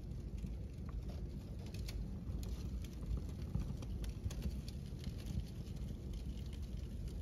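Crumpled paper and bags burning in a fireplace: a steady low rush of flames with scattered small crackles and ticks.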